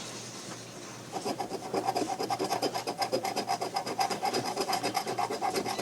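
A scratch-off lottery ticket being scratched in rapid back-and-forth strokes, several a second. The strokes start about a second in.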